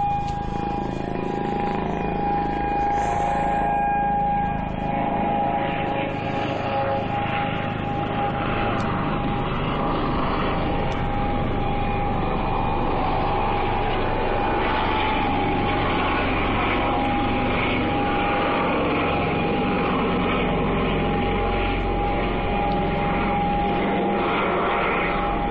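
Civil defense siren holding one long steady tone to mark a moment of silence, over steady background noise.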